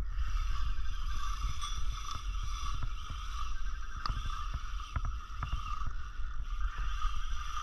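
Fishing reel's drag whining steadily as a big fish pulls line off the spool under a heavy run, over wind and water noise.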